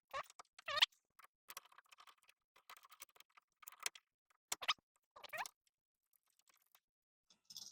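Plastic screw packaging crinkling and squeaking in the hands as small screws are poked out through the bag one at a time, in short, scattered crackles with a few brief squeaks.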